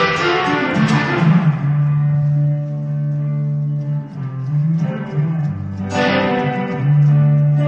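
PRS electric guitar played slowly through an amp: a ringing chord fades, a long low note is held, a short phrase moves between notes, and a bright new chord is struck about six seconds in and left to ring.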